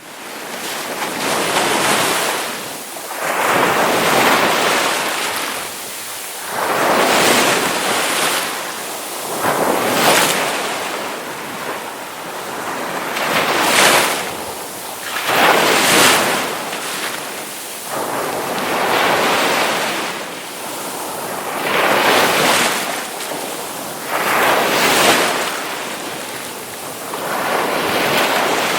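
Ocean waves breaking on a shore, a surge of surf washing in every two to four seconds.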